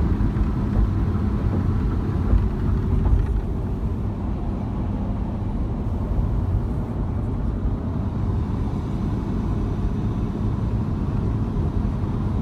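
Steady low rumble of a vehicle in motion, with a faint constant hum.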